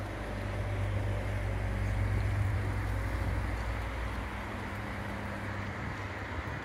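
A motor vehicle's engine running close by, a steady low hum that grows louder about two seconds in and then eases, over street traffic noise.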